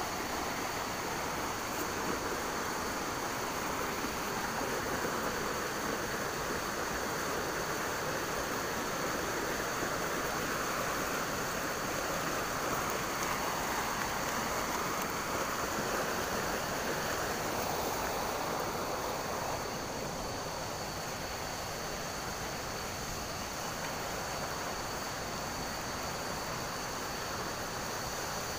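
Shallow, rocky river rushing over rapids: a steady rush of water that eases a little about twenty seconds in.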